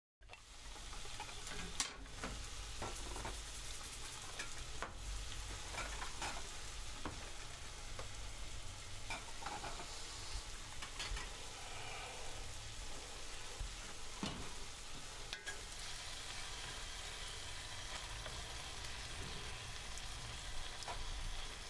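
Food sizzling in a frying pan, a steady hiss with a few sharp clicks of utensils, over a low steady hum.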